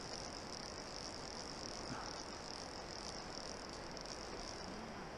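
Orvis fly reel's click drag buzzing steadily while a hooked trout is played on the bent rod, over the rush of the river. The buzz weakens near the end.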